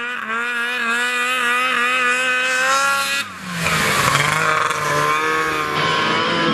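Snowmobile engine running with a high, steady pitch that wavers slightly as the sled skims across water. About three seconds in it changes to a closer, rougher snowmobile engine sound on snow.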